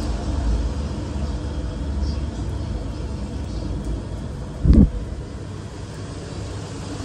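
Steady low rumble in a kitchen with gas-fired takoyaki griddles, with one short low thump about two-thirds of the way through.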